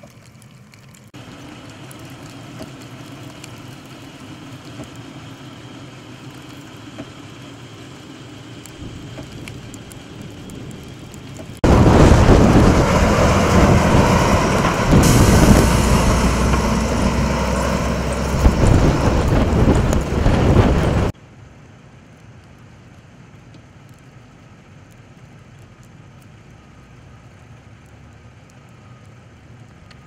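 Snowplow truck passing close, its engine and flung snow making a loud, dense noise for about ten seconds that cuts off suddenly. Before it, a much quieter steady vehicle sound; after it, low steady background.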